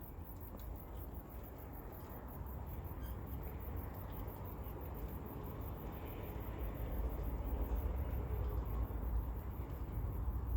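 Suburban outdoor ambience: a steady low rumble with a faint hiss that swells slightly over the second half, and no distinct animal calls.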